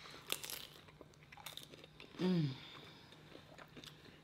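Crunching bites into a crisp fried sambusa pastry and chewing close to the microphone, with a short falling "mmm" of enjoyment a little after two seconds in.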